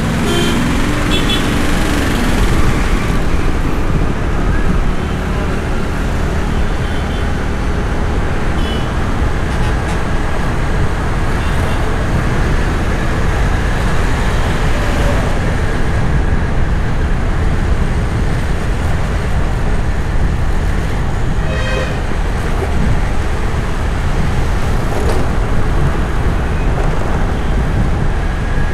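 City street traffic heard from a moving car: a steady rumble of engine, tyre and road noise, with a short vehicle horn toot about three-quarters of the way through.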